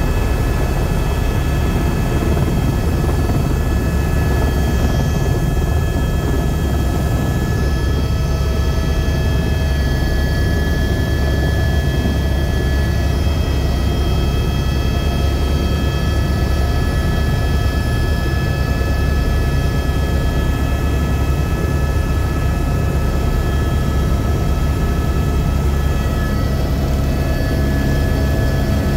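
Tour helicopter in flight, its engine and rotor running steadily: a constant low drone with several steady high whining tones over it.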